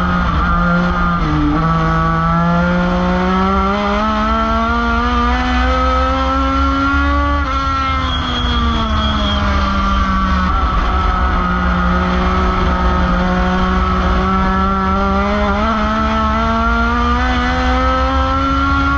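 Race car engine heard from inside the cockpit, running hard around a dirt oval. Its pitch climbs for several seconds as the car accelerates, drops back as the driver lifts for a turn, holds steady, then climbs again near the end.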